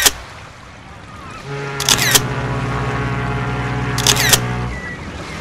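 Camera-shutter sound effect: quick double clicks, twice, about two seconds apart, as on each photo change. Between them a long steady low tone with overtones is held for about three seconds, over a steady hiss.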